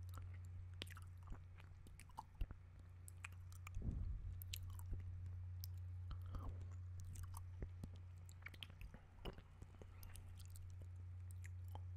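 Close-miked wet mouth sounds made with the lips right at the microphone: irregular clicks, smacks and sucking. There is a soft low thump about four seconds in, and a steady low hum sits underneath throughout.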